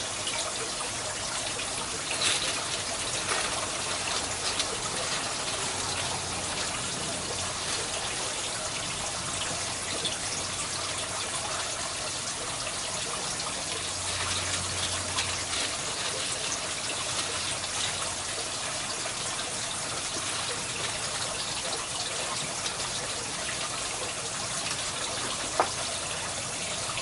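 Steady trickle and splash of water running through an aquaponics grow bed, with a few faint clicks and one sharp click near the end.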